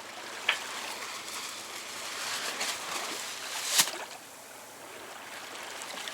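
Water rushing and splashing along the hull of a Rob Roy 23 sailboat under way, a steady hiss with two short sharp knocks, the louder one about four seconds in.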